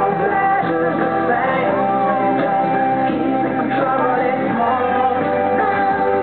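Recorded pop music with singing, played back at a steady level.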